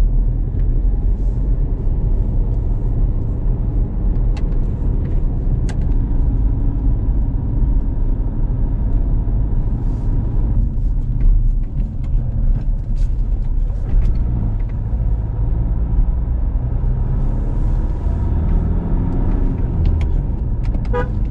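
A car driving along a winding hill road, giving a steady low rumble of engine and road noise. A brief rising engine note comes near the end.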